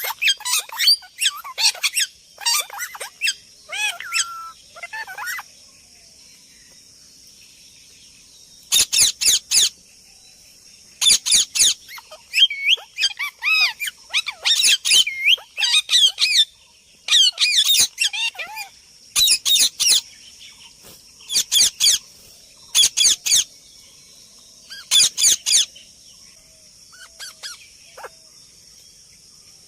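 Parrot calling in repeated clusters of sharp, high-pitched squawks and chirps that bend quickly in pitch, separated by pauses of one to three seconds, over a steady faint high hiss.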